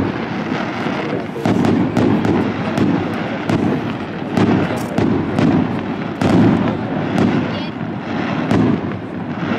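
Aerial firework shells bursting in quick succession: a string of loud booms, about one a second, mixed with sharper cracks.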